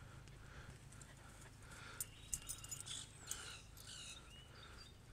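Faint, rhythmic panting of dogs at play, a soft puff about three times a second. A few light clicks and short high chirps come about halfway through.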